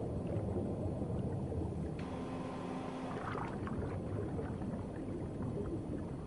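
Underwater ambience: a steady, low wash of water noise with faint bubbling crackles.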